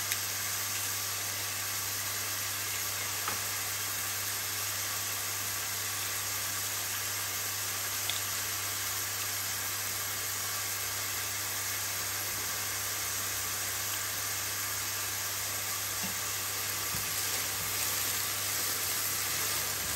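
Chopped red onion and garlic sizzling steadily in olive oil in a stainless steel sauté pan, over a steady low hum. A few faint taps, with stirring a little louder near the end.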